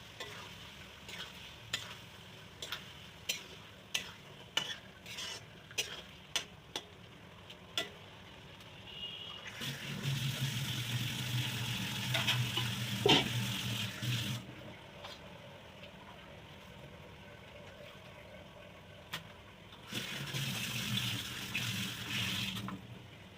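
Spoon knocking and scraping against a cooking pot as beef and spice paste are stirred and fried in oil, with louder sizzling about ten seconds in and again near the end.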